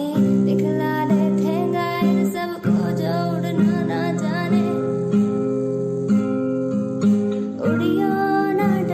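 Music led by an acoustic guitar, strummed to a steady beat, with a melody line above it.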